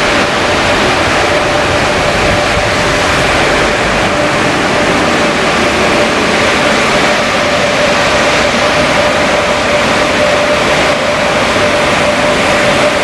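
Motor City Wash Works car wash blower dryers running: a loud, steady rush of air with a steady whine through it.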